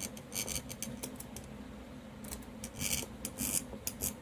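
Repeated short, irregular scraping and rubbing of ceiling fan metal parts being handled, over a low steady hum.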